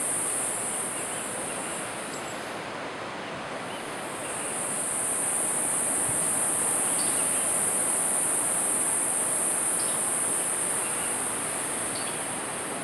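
Tropical jungle insects keep up a steady, high-pitched drone that drops away for a couple of seconds about two seconds in and then comes back loud. Beneath it runs the low rush of surf on the shore below, with a few faint, short chirps.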